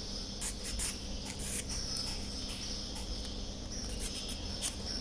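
Faint background noise: a steady high-pitched chirring and a low hum, with a few soft clicks as the plastic part and the metal file are handled.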